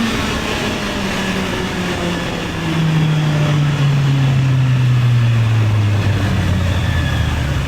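Honda CB650R's inline four-cylinder engine slowing down, its note falling steadily in pitch and growing louder about two and a half seconds in, over constant wind rush on the action camera's microphone.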